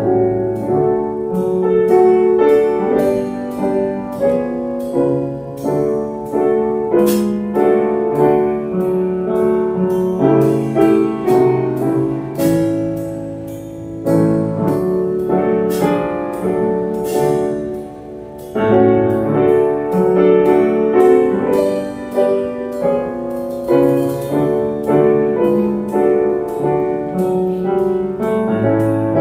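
Grand piano playing an instrumental piece, briefly softer about two-thirds of the way through.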